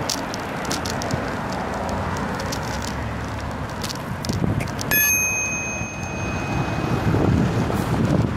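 A bicycle bell struck once about five seconds in, its clear ring fading over a couple of seconds, over steady rushing road and wind noise.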